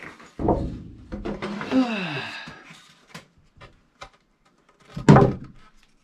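A man groaning with effort, then scattered light taps and clicks, and one loud solid thunk about five seconds in.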